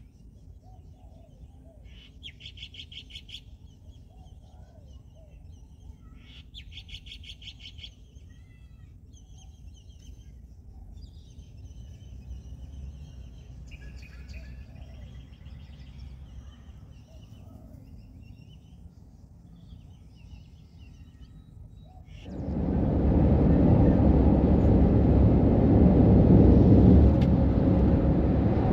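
Birds chirping and trilling, two short bursts of rapid trills and then scattered chirps, over a low steady rumble. About 22 seconds in, a loud heavy truck engine noise cuts in abruptly and carries on steadily.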